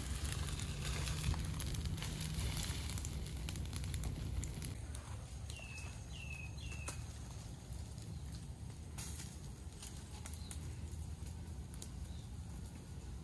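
Outdoor ambience: wind rumbling on the microphone, with scattered light crackling in the first few seconds. A bird calls three times in quick succession about six seconds in, each a short falling chirp.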